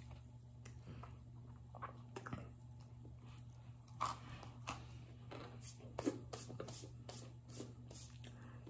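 Cornstarch brick being bitten and chewed: a scatter of short, soft crunching clicks, with a bite about four seconds in and the clicks coming thickest over the following few seconds.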